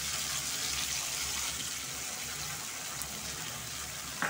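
Potatoes in a fried-down spice paste sizzling steadily in oil in a non-stick kadai, with the hiss easing slightly, as poppy-seed paste goes in.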